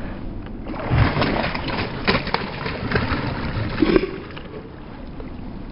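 Hooked pike thrashing and splashing at the water's surface in irregular bursts, dying down after about four seconds.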